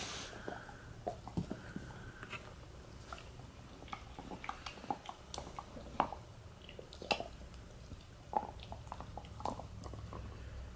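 A husky-Labrador mix dog gnawing on a hard mint-scented dog treat: faint, irregular clicks of teeth on the chew, a little more frequent near the end.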